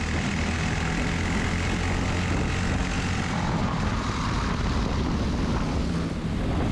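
Briggs & Stratton LO206 single-cylinder four-stroke kart engine running at racing speed, heard onboard with other karts close by. The revs fall away through the middle as the kart slows through a corner, then pick up again near the end.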